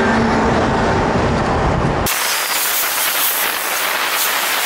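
Strong wind rushing over the camera microphone on a moving bicycle, mixed with passing highway traffic. About two seconds in, the rumbling noise cuts abruptly to a thinner, high hiss.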